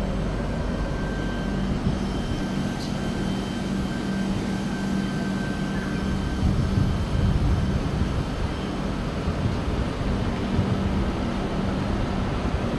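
Howrah–New Delhi Duronto Express air-conditioned passenger coaches rolling slowly past: a steady rumble of wheels on rail with a constant low hum.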